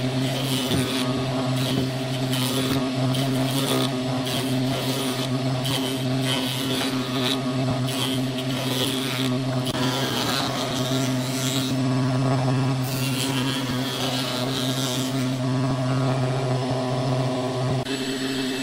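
Jointer running with a steady motor hum while an irregular block of burl wood is pushed over its cutter head, the spinning knives rasping and chipping at the wood again and again. The sound changes just before the end.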